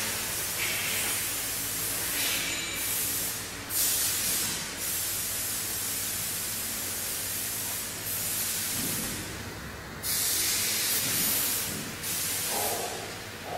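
CNC router spindle and bit milling grooves into a board: a high hiss of the cutting, over a steady low hum. The hiss jumps louder and quieter suddenly several times.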